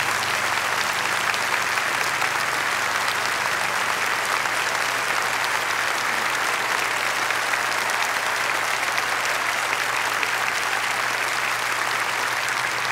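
Large audience applauding steadily, a dense even wash of clapping.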